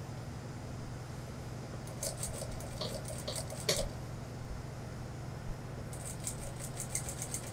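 Industrial single-needle lockstitch sewing machine stitching fabric in two short runs of rapid clicking, about two seconds in and again near the end, over a steady low motor hum.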